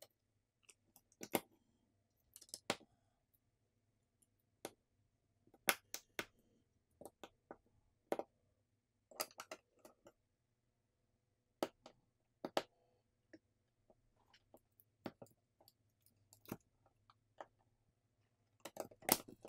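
Irregular small clicks and taps as smartphone parts are fitted back into the phone's frame: the motherboard and internal components set down and pressed into place by hand, connectors snapping home.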